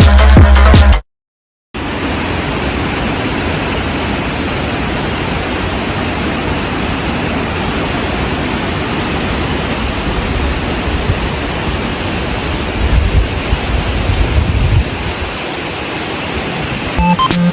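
Electronic music cuts off about a second in, and after a brief dead silence a steady, even noise like static takes over. Music comes back in near the end.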